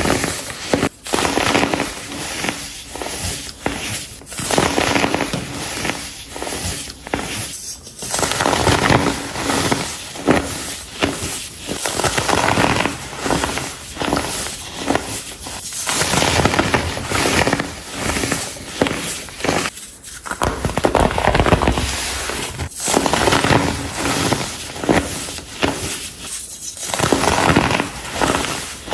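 Compressed baking soda blocks being crushed, a dense run of crunching and crackling broken by brief pauses every few seconds.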